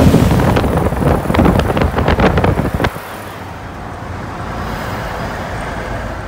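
Wind buffeting the microphone over waves breaking on a rocky shore, cut off suddenly about three seconds in by the quieter, steady rumble of road noise inside a moving car's cabin.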